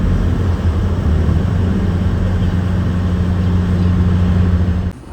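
An engine running at a steady, loud, low drone over a broad rumble, cutting off suddenly near the end.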